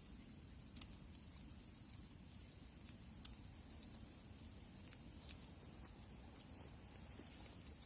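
Faint, steady high-pitched chorus of insects, with a few sharp campfire crackles; the loudest comes just after three seconds.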